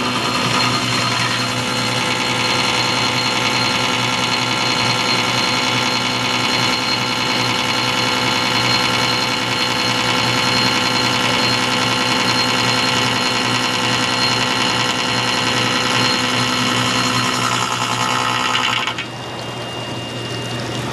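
CNC milling machine cutting steadily, a dense high-pitched whine of spindle and cutter over a constant hum. About two seconds before the end the cutting sound drops away, leaving a quieter steady machine hum.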